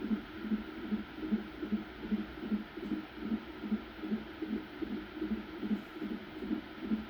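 Heartbeat of a 28-week fetus heard through a Doppler ultrasound monitor: quick, even whooshing beats, about two and a half a second, over a steady faint hiss.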